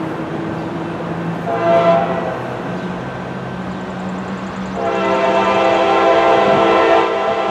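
Horn of an approaching Norfolk Southern diesel freight locomotive, sounding several notes together as a chord: a short blast about two seconds in, then a long blast starting about five seconds in, over a steady low hum.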